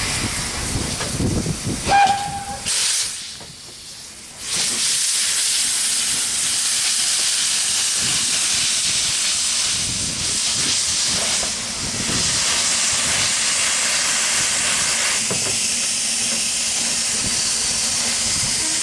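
Steam locomotive 'Superb', a Bagnall 0-6-2 tank engine, giving a short whistle toot about two seconds in. It then moves off slowly with a steady hiss of steam escaping from its open cylinder drain cocks.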